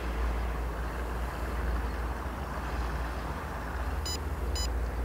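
Steady low outdoor rumble, then from about four seconds in a run of short electronic beeps, about two a second, from the bait boat's remote control as the boat reaches its GPS point and the hopper is about to drop.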